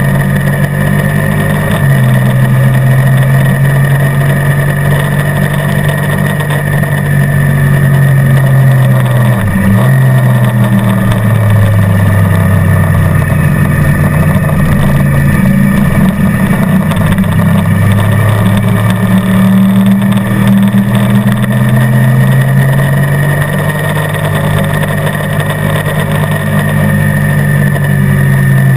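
Motorcycle engine running at track speed, its pitch climbing and falling with throttle and gear changes, with a sharp drop and recovery about ten seconds in.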